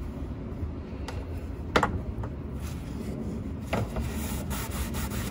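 Rubbing and handling noises as the old rubber O-ring is worked off the plastic oil filter housing cap, with a few sharp clicks, the loudest about two seconds in and another near four seconds.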